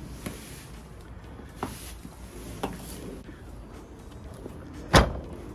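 A few light knocks, then one sharp, loud knock about five seconds in, against the wooden boards of a horse stable.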